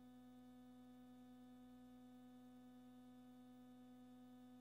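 Near silence with a faint, steady electrical hum on the audio feed; no rocket sound is heard.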